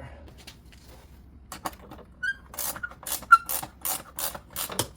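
Socket ratchet wrench clicking as it is worked back and forth on a 19 mm nut, in a regular run of about three clicks a second that starts about halfway through.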